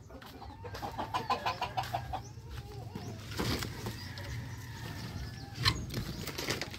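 Chickens clucking, with scattered rustles and knocks as leafy branches are carried and brush past.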